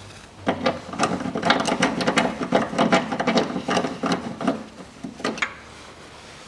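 Socket ratchet on a long extension clicking rapidly as engine-mount bracket bolts are run in, not yet tightened. The clicking starts about half a second in and stops about five and a half seconds in.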